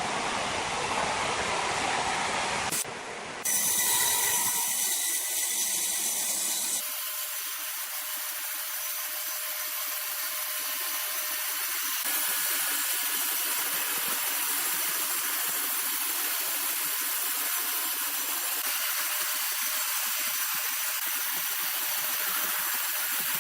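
Sawmill machinery running with a steady hissing whir, the sound changing abruptly about three and seven seconds in.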